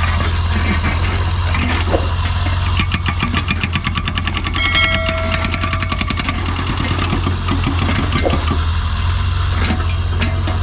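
Doosan DX55WA wheeled excavator's diesel engine running steadily with a low hum. About three seconds in there is a rapid clattering, then a short high whine.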